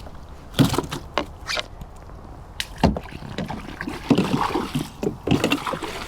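Scattered knocks and bumps on a fishing kayak, about half a dozen, with light water sloshing and dripping while a freshly caught bass is handled aboard.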